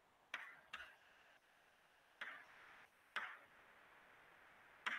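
Chalk tapping and scraping on a blackboard while writing: five short, faint strokes at uneven intervals.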